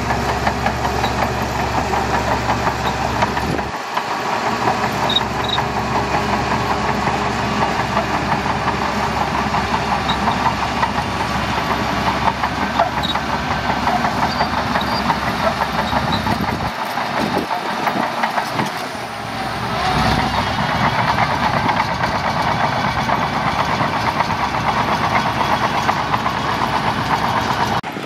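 Shantui DH17C2 bulldozer's diesel engine running steadily as the dozer works. The deep low rumble cuts out abruptly about four seconds in and again around seventeen seconds, and the sound swells back up a few seconds later.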